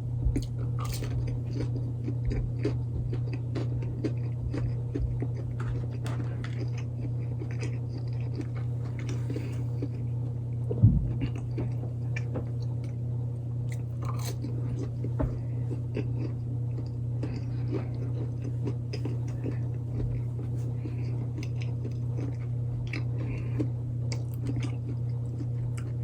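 A person biting into and chewing breaded spicy chicken nuggets close to the microphone, a run of small crunches and mouth clicks. A steady low hum runs underneath, with one louder knock about eleven seconds in.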